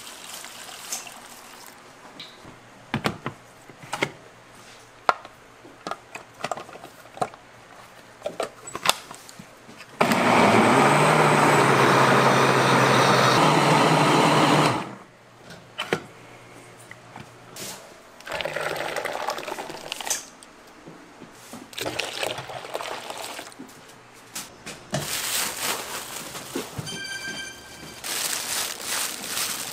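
Kitchen work sounds: scattered knocks and clatter for the first ten seconds or so, then a loud, steady rushing noise with a low hum that lasts about five seconds and stops abruptly, followed by shorter, quieter stretches of rushing and clatter.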